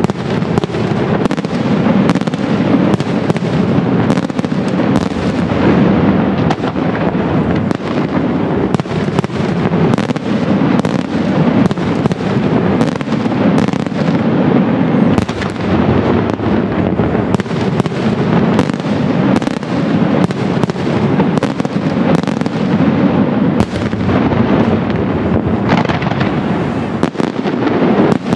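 Italian daytime (diurno) fireworks display firing a dense, continuous barrage: rapid overlapping bangs merge into a steady rumble, with many sharp cracks on top.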